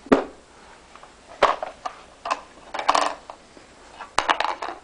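Toy tool box and its toy tools knocking and clattering as they are handled: a sharp knock at the start, then single knocks and short clusters of clatter about every second.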